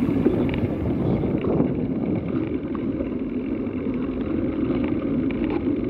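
Wind buffeting the microphone of a camera riding along on a bicycle, over a steady low rumble of bicycle tyres rolling on rough paving, with a few small rattles.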